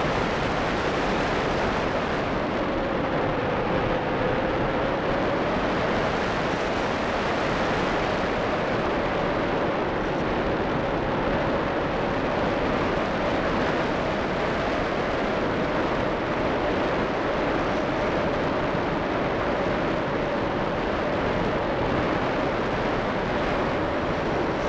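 Steady in-flight noise of a model ASW 15 sailplane, heard through a keychain camera riding on board: a constant loud rush of motor and airflow with one steady hum running through it.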